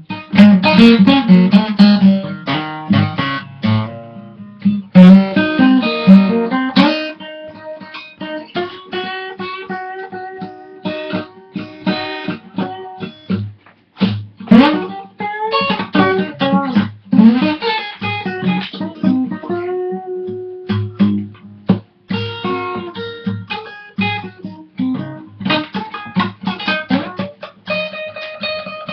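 Guitar playing a blues instrumental passage: picked notes and strummed chords, with bent notes sliding in pitch.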